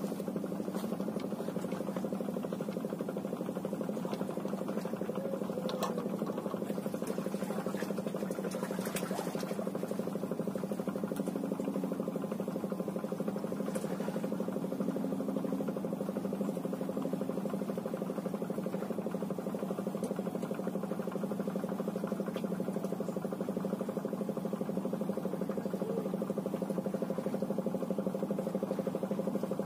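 A steady, unchanging mechanical hum, like an engine running at a constant speed, with a few faint ticks around six and nine seconds in.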